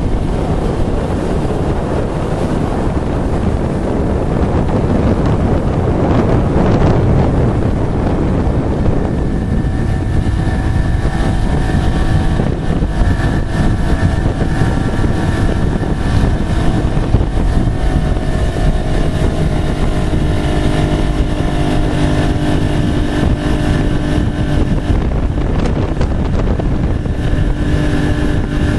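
Twin-hull ski boat under way, its engine running steadily with wind noise on the microphone, and a louder rush about six seconds in.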